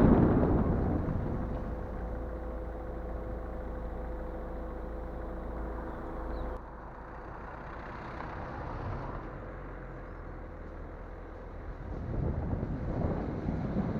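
Wind noise on a car-roof-mounted camera dies away as the car slows, leaving a steady vehicle hum with a few steady tones that drops suddenly about halfway through. Wind noise builds again near the end as the car picks up speed.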